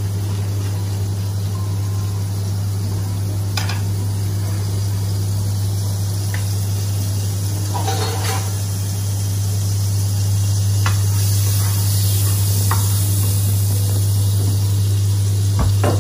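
Butter melting and sizzling in a hot wok, the sizzle growing louder about ten seconds in, over a steady low hum. A few brief light clicks are heard.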